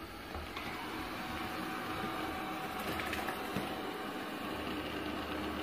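Coredy robot vacuum cleaner running: its motors and spinning side brushes make a steady whir that grows slightly louder.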